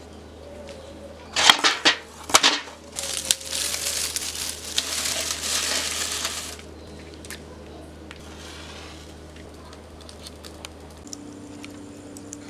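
Coconut shells knocking into a metal bucket, a few loud sharp knocks, then hands stuffing and crushing dry coconut husk in the bucket, a dense rustling, crunching sound for a few seconds. Faint scattered ticks follow.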